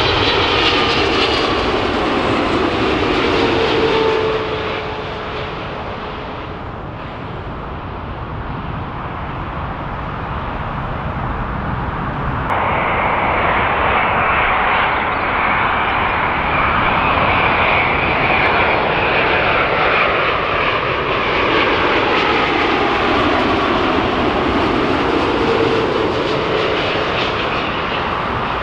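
Widebody jet airliners on final approach passing close by, their engines running with a loud rushing noise and a whine. The first fades with its whine falling in pitch; about twelve seconds in the sound changes suddenly to a second airliner coming in, its whine dipping and rising again as it passes.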